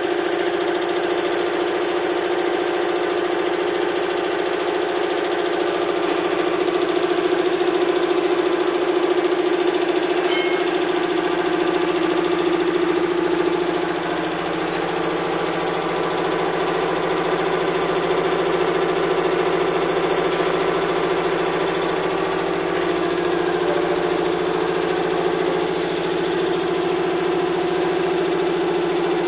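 Belt-driven high-pressure piston air compressor running steadily, its electric motor driving the air-cooled pump through belts with a constant mechanical drone.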